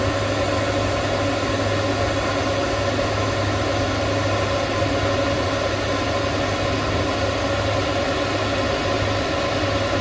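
Electric fans running steadily: the blower of an IcyBreeze portable air-conditioner cooler and Ryobi battery fans pushing air into a dog crate. An even rush of air with a steady low hum and a steady higher tone.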